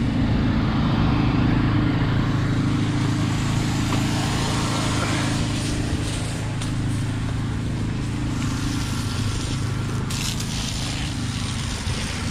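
Engine of a high-pressure drain jetter running steadily at constant speed.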